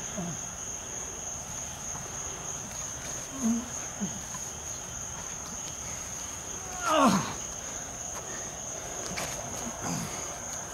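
Crickets trilling in a steady high band throughout, with a few short grunts from men grappling on the ground; the loudest, a falling strained cry, comes about seven seconds in.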